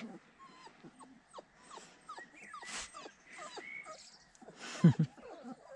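Young puppy whimpering in a run of short, high squeaks, with a dull bump near the end.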